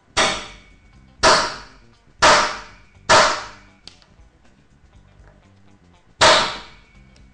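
Hammer striking the top of a metal eyelet setter five times: four sharp blows about a second apart, then a pause and one more. This sets the eyelet through the cardstock, splitting and flattening its back.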